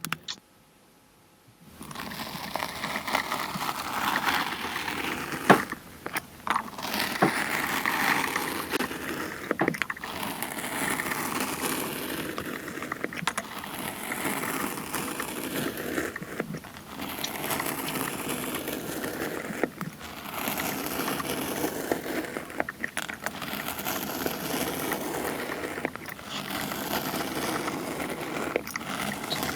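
Kinetic sand being cut and squished, heard as a rustling, scratchy noise in short segments with brief gaps every two to three seconds.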